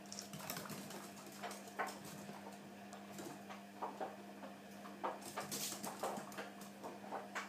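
Guinea pigs giving irregular short squeaks, with their claws pattering on a hard floor as they scurry about.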